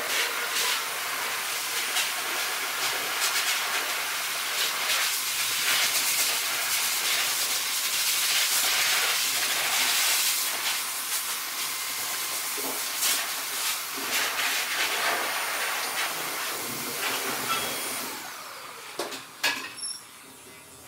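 Electric dog clippers shaving a Husky's thick double coat: a steady hiss of the blades cutting through dense fur. Near the end the hiss drops away to a quieter steady buzz, with a few short clicks.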